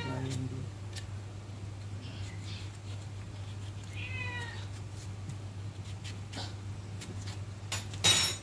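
A pet animal giving two short cries that fall in pitch, about four seconds apart, over a steady low hum; a loud, sharp noise cuts in near the end.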